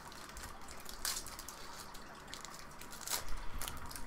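Foil Magic: The Gathering booster pack wrapper being torn open and crinkled by hand, with a few sharp crackles about one second in and again around three seconds in.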